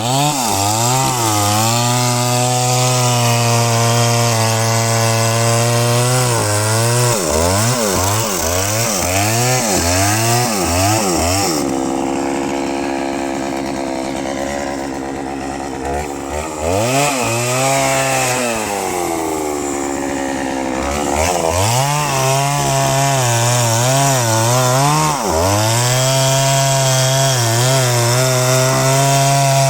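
Chainsaw running at high revs and cutting into wood, its pitch dipping and recovering again and again as it bogs under load. Around the middle it drops to a lower, steadier speed for several seconds, dips once more, then climbs back to full throttle near the end.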